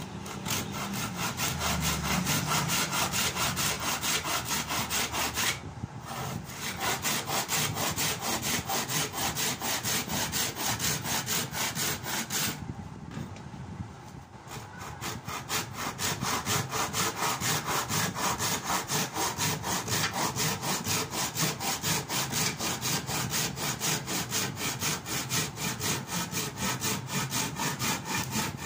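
Hacksaw cutting through the broken wooden handle stub of a cricket bat in quick, even back-and-forth strokes, about three a second. The sawing pauses briefly about six seconds in and again around thirteen seconds in.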